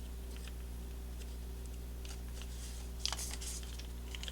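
Paper and cardboard packaging being handled: a few faint taps, then a brief rustle about three seconds in, over a steady low electrical hum.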